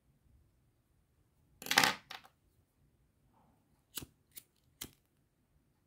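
Scissors snipping through velvet chenille yarn about two seconds in, with a smaller second snip just after. Later come three short, sharp clicks as a lighter is struck to singe the trimmed yarn end.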